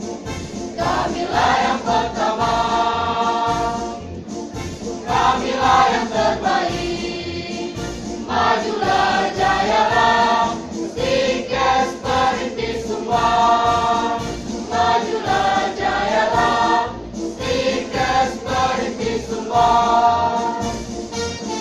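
A women's choir singing a march, the college's anthem, in chorus, phrase after phrase over a regular beat.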